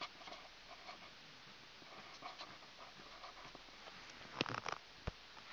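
Felt-tip marker writing on paper: faint scratching strokes. A brief louder scuffing noise comes about four and a half seconds in, and a single soft knock about a second before the end.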